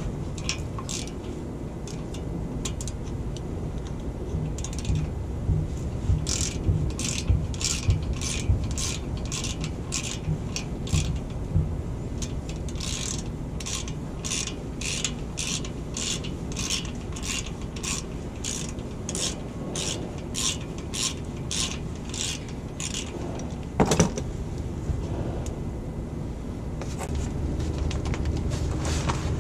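Hand socket ratchet clicking in runs, about two clicks a second, as a bolt on a truck's rear brake caliper is turned. A single louder knock comes near the end.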